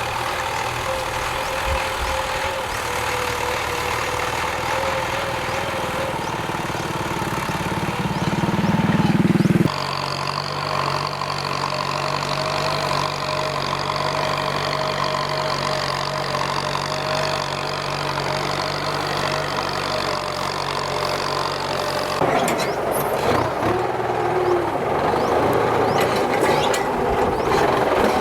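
Farm tractor's diesel engine running steadily while ploughing. The engine note swells just before ten seconds in, then shifts abruptly, and shifts again near the end.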